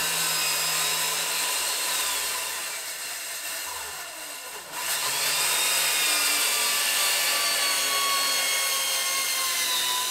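Corded circular saw ripping 3/4-inch plywood, the motor whining steadily under load as the blade cuts along the sheet. The cut goes quieter for a moment around the middle, then comes back to full load.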